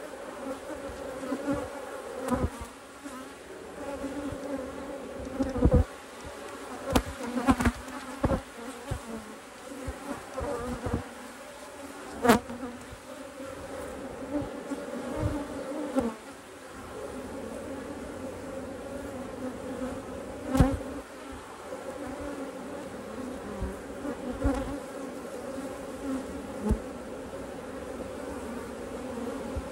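Honeybees buzzing in a steady hum with overtones, broken by frequent short knocks and clicks, the sharpest about twelve and twenty seconds in.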